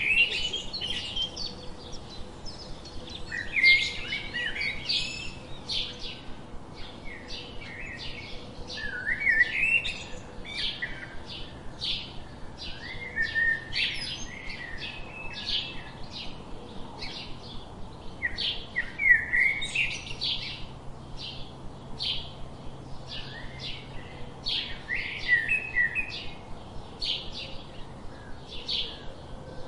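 House sparrows chirping: a steady run of short chirps, several a second, with louder, busier bursts every few seconds.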